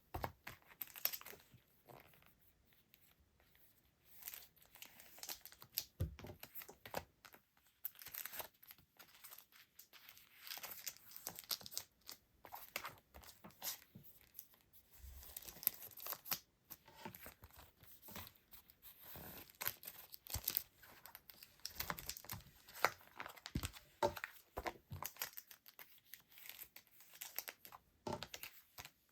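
Paper and plastic packaging rustling and crinkling as it is handled, with irregular small taps and clicks and no music.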